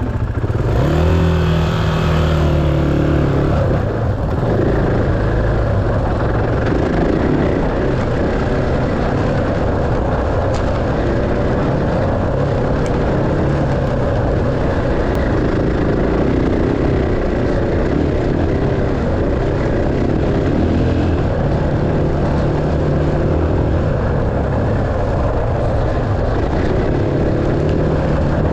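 Dirt bike engine running continuously under riding, its pitch shifting up and down as the throttle opens and closes.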